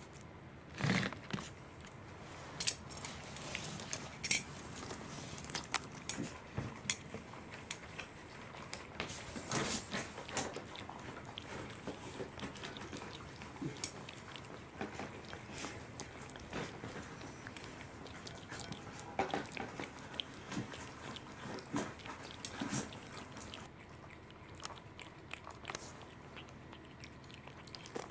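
Cat chewing and biting raw salmon, a run of short, irregular clicks and smacks of its mouth on the soft fish.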